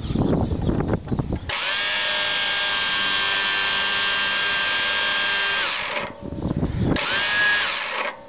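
Electric starter motor on an 11 hp Briggs & Stratton engine, after a second and a half of irregular knocking, whines steadily for about four seconds and winds down, then whines again for about a second. The engine does not start.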